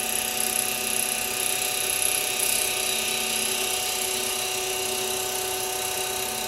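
Mini milling machine running steadily, its fly cutter cutting a bevel chamfer in a metal part with a constant motor whine and a hiss. The spindle is run at low speed because the fly cutter is off balance.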